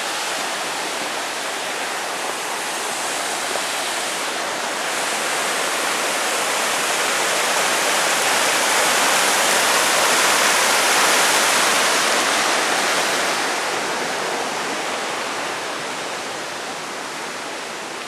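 Mountain stream and small waterfall rushing over rocks, a steady loud water noise that grows louder through the middle and eases off again near the end.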